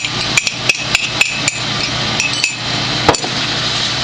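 Wooden spoon knocking against an aluminium roasting pan while stirring ground-meat filling. A quick run of sharp knocks with a brief metallic ring in the first second and a half, then a few spaced ones, the loudest about three seconds in, over a steady hiss.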